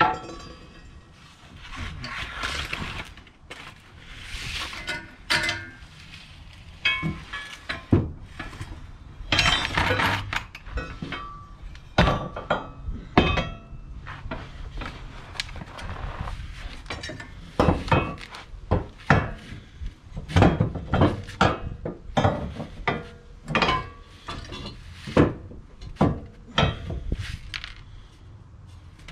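A Whiteline metal sway bar clanking and knocking against the car's underside as it is wiggled through into position under a Honda Civic, giving a run of sharp clinks and thunks at uneven intervals.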